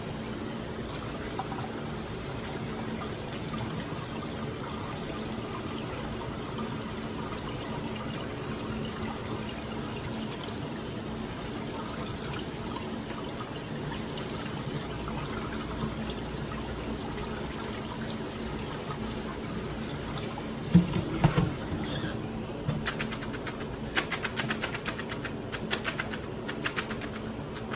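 Kitchen faucet running cold water steadily over pasta in a colander, rinsing off the starch to stop the cooking. Near the end a loud knock, followed by a run of quick clatters and taps.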